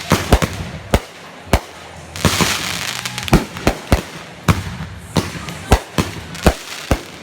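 Consumer fireworks going off: a string of sharp bangs at uneven intervals, with a burst of crackling hiss about two seconds in.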